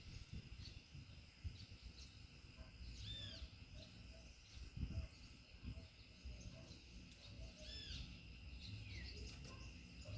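A bird giving two short calls, each a quick rising-and-falling note, about three and eight seconds in, over a steady high insect drone and a low uneven wind rumble on the microphone.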